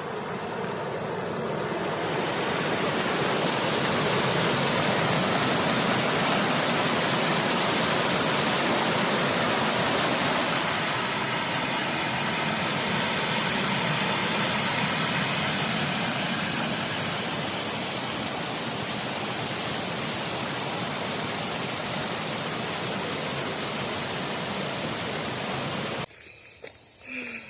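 Waterfall rushing close by: a steady, loud wash of falling water that builds over the first couple of seconds and cuts off suddenly near the end.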